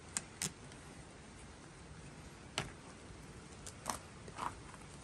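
Plastic catalyst bottle being opened by hand: about six short clicks and scrapes as the cap is twisted off and the neck is worked at.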